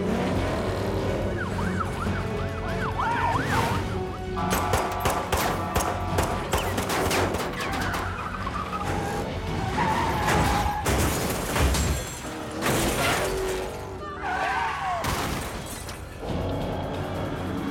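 Police sirens wailing over car engines and a dramatic orchestral score, with several loud bangs and crashes along the way.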